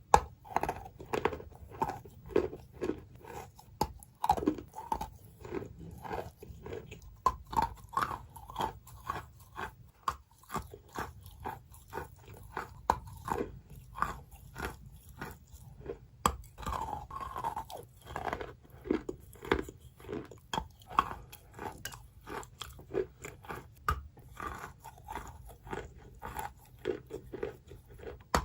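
Close, soft wet crunching of soaked chalk, a steady run of short crunches about two or three a second.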